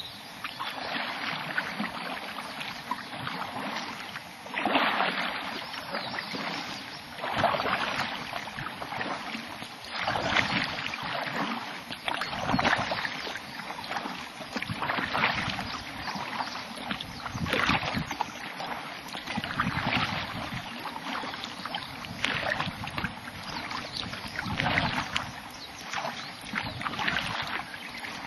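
Kayak paddle strokes: the blades dip into and pull through the water, a splashy swell about every two and a half seconds.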